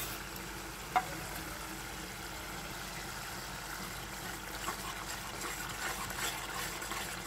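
Onion-tomato masala sizzling steadily as it fries in oil in a kadhai, with one sharp knock about a second in. In the second half a spatula stirs through it, adding a few soft scraping ticks.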